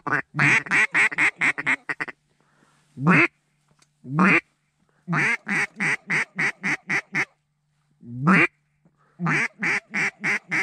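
Mallard-style duck call blown by a hunter to draw a duck in: strings of quick quacks about five a second, broken by three single drawn-out quacks.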